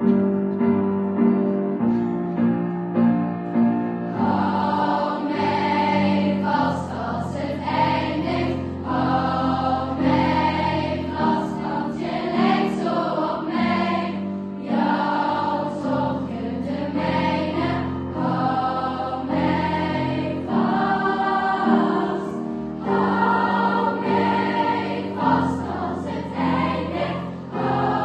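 Music: a choir singing over sustained chords, with the voices coming in about four seconds in.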